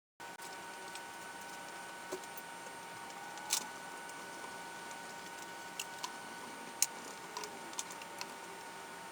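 Quiet workshop room tone with a steady faint hum and a few scattered light clicks and taps.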